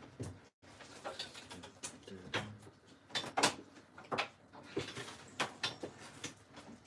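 Irregular light clicks and knocks, several in a row, with soft rustling between them: small objects being picked up and handled off camera.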